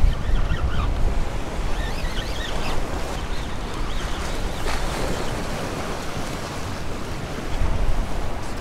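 Surf washing and breaking against the stone blocks of a jetty, with wind buffeting the microphone.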